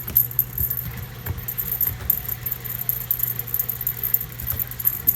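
Washing machine running with a steady low hum, with irregular light jingling and rattling clicks over it.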